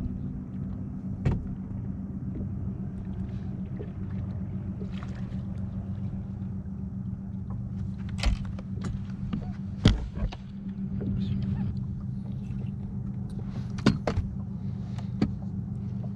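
A boat motor's steady low hum, with several sharp knocks and thumps on the boat as a fish is netted and handled, the loudest about ten seconds in.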